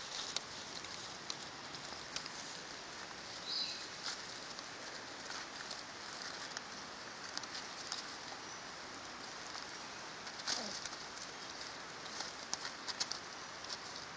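Puppies rustling and scratching in dry leaf litter and undergrowth: scattered light clicks and rustles over a steady faint hiss. There is a short high chirp about three and a half seconds in and a brief falling squeak about ten seconds in.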